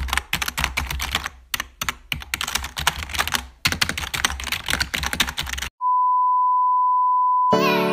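Rapid computer-keyboard typing clicks in irregular bursts for about five seconds, then a single steady beep lasting under two seconds, with piano music starting just before the end.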